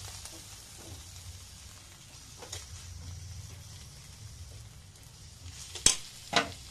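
Fried potato and greens sizzling faintly in a hot karahi as a metal spatula scoops them onto a plate. Near the end the spatula knocks sharply against the pan twice.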